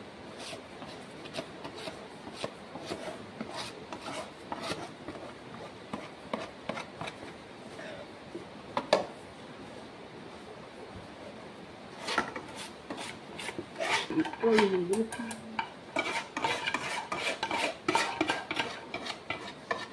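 Metal spoon scraping cake batter out of an aluminium bowl into a baking tin, with scattered clinks of metal on metal. There is one sharp knock about nine seconds in, and from about twelve seconds the scraping and clinking grow busier and louder.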